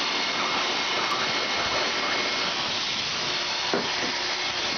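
Dog grooming dryer blowing air through its hose nozzle: a steady rushing of air with a thin, steady whine.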